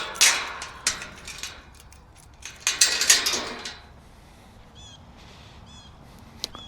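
Two loud bursts of rustling, scuffling noise, then two short wavering bird calls later on, among the poultry at feeding.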